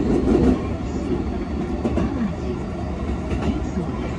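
Hankyu 2300 series electric train heard from inside a passenger car while running at speed: a steady low rumble with a few light wheel clacks over rail joints.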